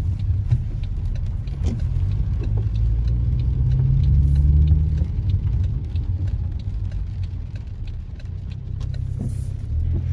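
A car moving slowly with a low engine and road rumble. The engine note rises a little about four seconds in, then eases off, with scattered faint ticks over the rumble.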